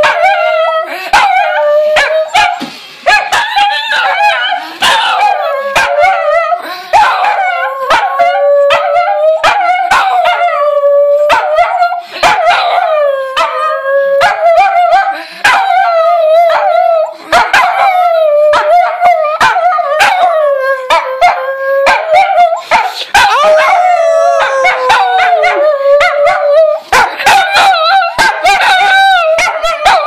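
Small dogs howling and yapping loudly almost without a break: long wavering howls that slide up and down in pitch, broken by rapid sharp yips and barks.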